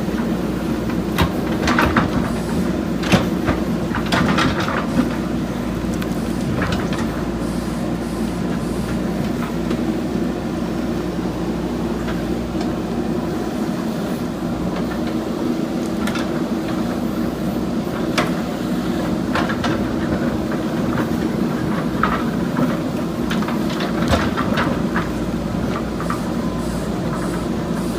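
Backhoe loader's diesel engine running steadily under work, with scattered sharp knocks as it digs.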